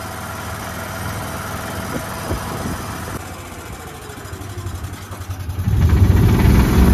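Shuttle golf cart driving along a road, its motor and tyres giving a steady low hum that gets louder about five and a half seconds in.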